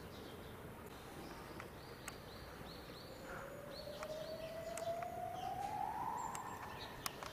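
A siren wailing: one steady tone that rises slowly in pitch from about three seconds in, peaks, then starts to fall near the end.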